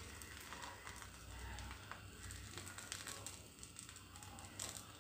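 Faint crackling of appam batter cooking on a hot, greased tawa, with light scattered ticks and rustles as grated coconut is sprinkled over it.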